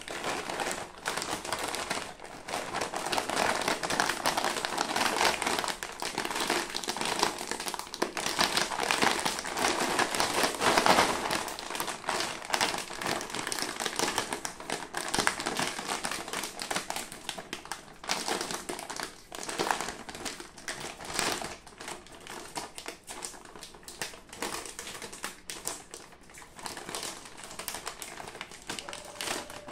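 Foil-lined plastic potato chip packet being squeezed, torn open and pulled apart by hand: continuous crinkling and crackling of the film, busiest in the first half and thinning to scattered crackles later.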